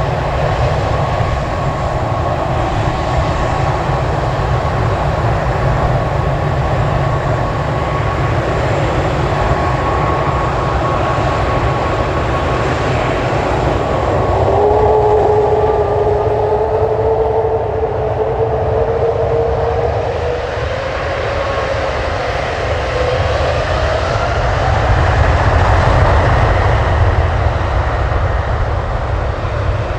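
Airbus A380-861's four Engine Alliance GP7200 turbofans running as the jet taxis, a steady whine over a low rumble. About halfway a second, lower whine joins and climbs slowly in pitch, with higher whines rising after it.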